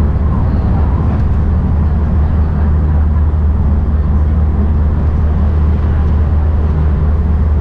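Steady low rumble of a JR West rapid train running at speed, heard from inside the carriage.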